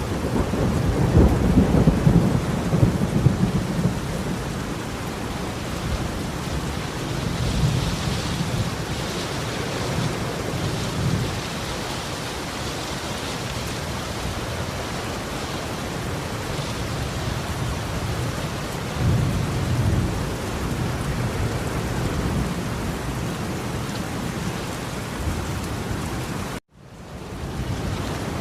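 Steady rain falling with rolling thunder, the deep rumble swelling several times. Near the end the sound cuts out abruptly for a moment, then fades back in.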